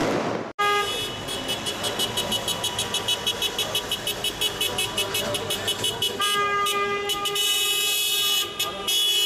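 Car horns honking in a street convoy. A brief crackle of fireworks cuts off about half a second in. Then come rapid short toots, several a second, and from about six seconds in, long steady horn blasts.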